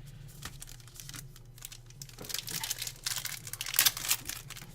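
Trading-card pack wrappers being handled, then crinkled and torn open. The first two seconds hold only light handling; the crinkling starts a little after two seconds in and is loudest near the end.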